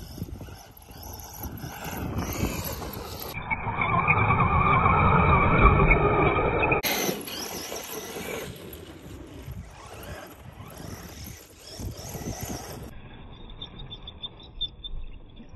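Traxxas E-Revo 2.0 RC monster truck's electric motor and drivetrain, on an 18-tooth pinion, whining as it accelerates and drives across loose sand and dirt, the pitch rising and falling with the throttle. The sound changes abruptly a few times.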